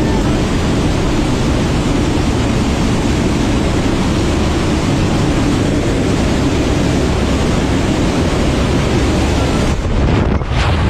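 Steady loud noise of engines and rushing air inside a transport aircraft's cabin, with the jump door or ramp open. Near the end it changes abruptly as the skydiver leaves the plane into the slipstream.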